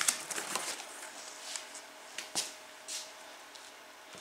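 Cardboard box and packing being handled as a harmonic balancer is lifted out: a series of short rustles, scrapes and light taps.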